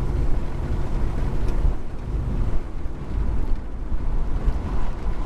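Vehicle cabin noise while driving: a steady low rumble of engine and tyres on the road.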